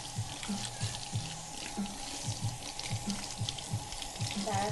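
Kitchen faucet running into a stainless-steel sink while hands are washed under the stream.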